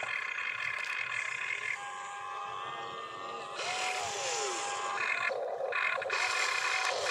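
Electric motors and gearing of an RC excavator whining in stops and starts as the cab swings and the boom and bucket move, with a short falling tone about four seconds in.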